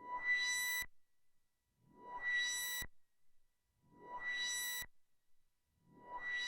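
Behringer Neutron analog synthesizer repeating the same short note about every two seconds, four times. Each note is a steady pitched tone with a hiss that rises and brightens, then cuts off sharply after under a second.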